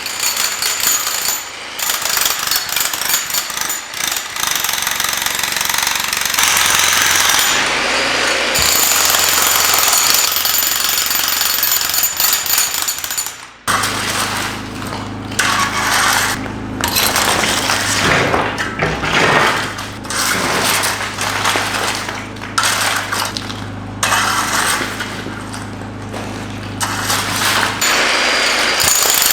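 A jackhammer chiselling into concrete, running in long runs. It stops briefly about fourteen seconds in, then starts again in shorter runs with brief pauses between them.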